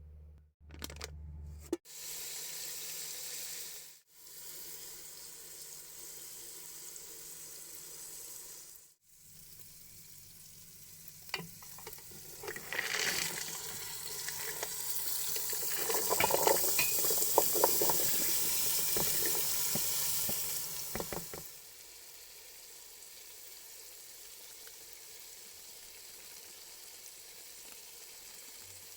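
Food sizzling in a hot pan, with clicks and scrapes of stirring. It is loudest through the middle stretch, then settles to a quieter steady hiss.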